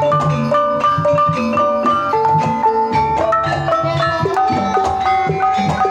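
Javanese gamelan ensemble playing a Banyumasan gending, with bronze bonang kettle gongs struck in quick successive notes that ring on over drums and gongs.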